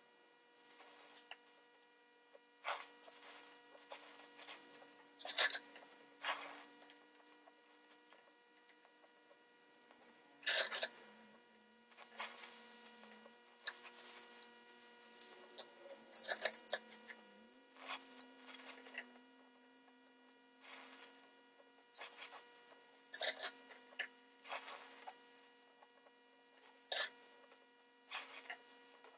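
Torch-soldering a brass band onto a spun brass lamp top: a faint steady hum under about a dozen short, irregular scrapes and taps of metal as the work is handled.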